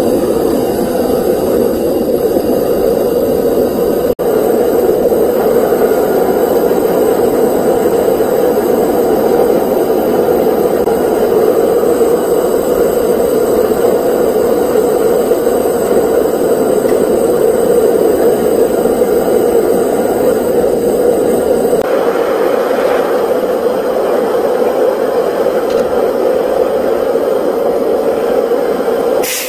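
Propane forge burner running with a steady, loud rushing hiss, the gas flame firing into a small firebrick forge.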